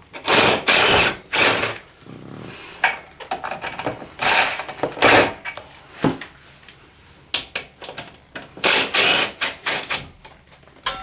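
Craftsman cordless drill/driver with a 10 mm socket running in short bursts, backing out the screws that hold an ATV's rear fender. There are about five spins of under a second each, with a longer pause midway.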